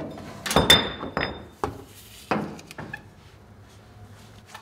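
Heavy steel leaf spring from a 1990 Ford Bronco's rear suspension clanking against surrounding metal as it is wrestled out of its mounts: a cluster of sharp metal knocks about half a second in, the loudest with a brief ring, then several more separate knocks over the next two seconds and a few faint clicks.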